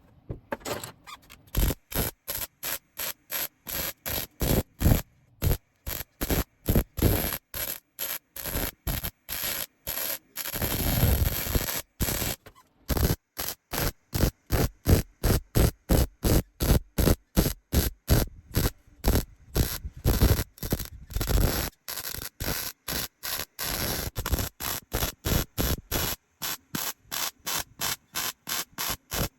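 Welding arc crackling in short bursts, about two a second, with one longer run near the middle, as holes in thin sheet-steel bodywork are filled bit by bit: stitching around the edge of each hole and letting it cool between goes.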